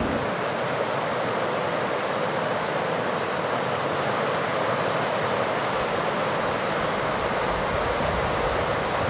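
A small creek rushing over rocks and low rapids: a steady, even rush of water.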